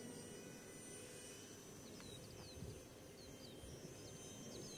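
Faint outdoor sound. A low rumble of wind runs through, under the thin distant whine of a 30mm electric ducted fan on a small RC jet. From about two seconds in come a few short bird chirps.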